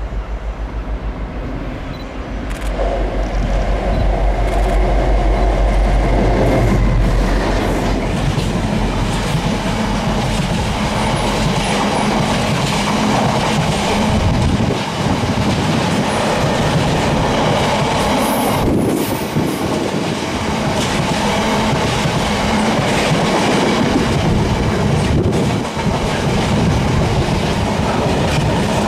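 Diesel freight train passing close by. The locomotive's engine hum is strongest for the first several seconds, then a long rake of freight wagons rumbles past with wheels clattering over the rail joints.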